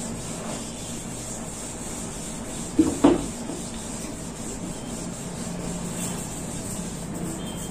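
An eraser rubbing back and forth over pencil writing on paper, with two short knocks close together about three seconds in.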